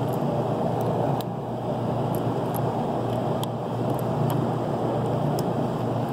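Steady rumbling noise of an indoor shooting range's ventilation, with a few faint, short clicks over it.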